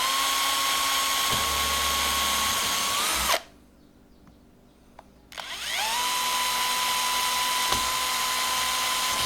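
Power drill in high gear boring holes through a plastic fridge door handle, in two runs: the motor spins up to a steady whine, its pitch rises briefly just before it stops about three seconds in, and after a pause of about two seconds it runs again steadily.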